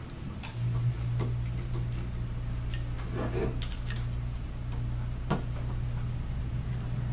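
Scattered light clicks and ticks of a manual screwdriver turning and snugging the volute screws on a Danner magnetic drive pump, the volute being seated onto the pump housing. A steady low hum runs under it and grows louder about half a second in.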